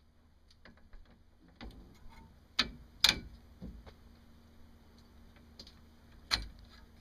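The aluminium and stainless-steel parts of a homemade kayak sail-mast fitting being handled: scattered light clicks and three sharp knocks, two close together about two and a half to three seconds in and one more near the end.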